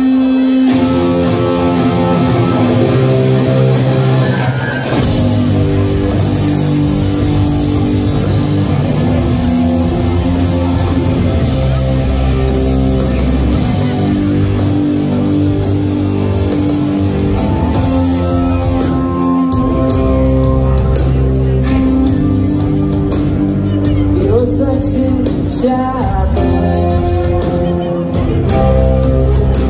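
Live rock band playing: electric guitars, bass guitar and drum kit. A single held note gives way to the full band about a second in, and cymbals join around five seconds in.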